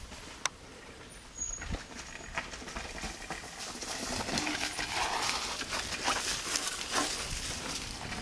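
Mountain bike descending a rocky dirt trail: tyres crunching and knocking over stones, with the bike clattering and rattling. It grows louder after the first second or two and stays loud for the rest.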